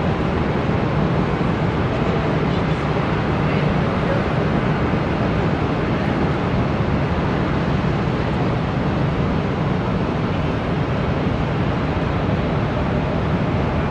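Steady, even roar of jet aircraft engines running at an airport, with no separate events.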